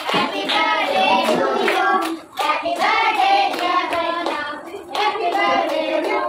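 A group of children and adults singing together, clapping along in time.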